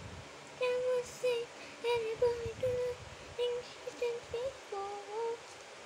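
A young girl humming a tune to herself, a string of short held notes with small gaps between them.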